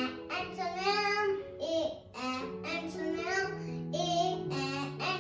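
A child's voice singing a phonics song over an instrumental backing of long held notes.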